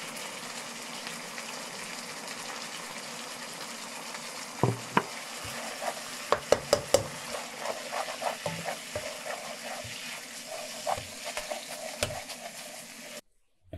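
Spicy sauce sizzling and bubbling in a wok over the flame. From about four and a half seconds in, a wooden spoon stirs in starch slurry, knocking and scraping against the wok. The sound cuts off abruptly near the end.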